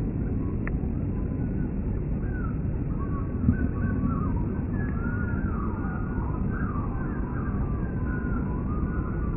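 A steady low rumble with thin, wavering whistling tones that slide up and down above it, heard as the 'weird noises' of a jet overhead. A short knock comes about three and a half seconds in.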